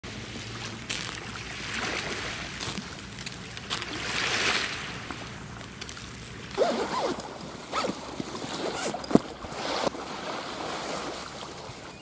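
Thick Kuroge Wagyu sirloin steak sizzling on a wire grill over charcoal, a steady hiss that swells and eases, with scattered sharp pops and crackles of fat and embers. A few short squeaky pitched sounds come in around the middle.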